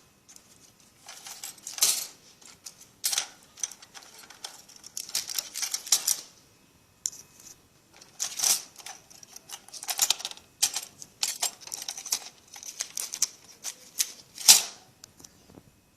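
Irregular sharp plastic clicks, snaps and taps as a Lexibook Junior tablet's plastic case and parts are fitted back together, with the loudest snap near the end.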